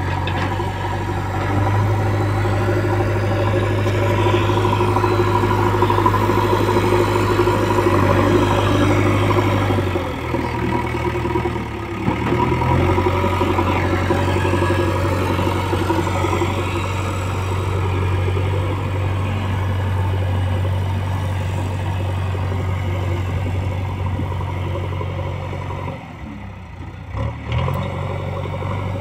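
JCB backhoe loader's diesel engine running steadily under load as its front bucket pushes soil, easing off briefly around the middle and again near the end before picking back up.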